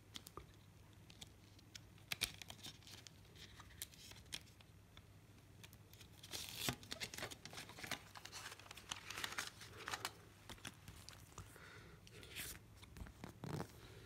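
Handling of a plastic CD jewel case and its paper booklet: scattered light clicks of the plastic case and short rustles of paper as the booklet is slid out and opened, with a steady low hum underneath.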